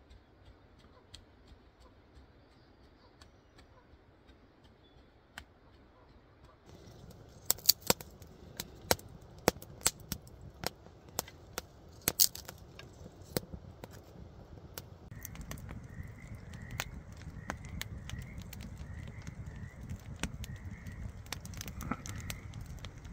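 Small wood fire of split kindling crackling: sharp pops and snaps as it catches, then a steadier low rush of burning with occasional pops. The opening seconds are quiet apart from a few faint ticks.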